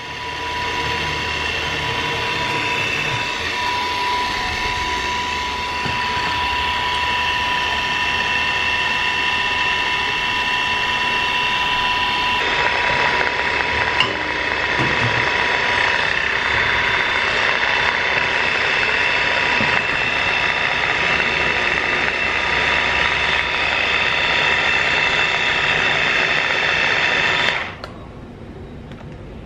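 Electric countertop blender running steadily, its motor whining as it blends a drink in the jar, then cutting off near the end.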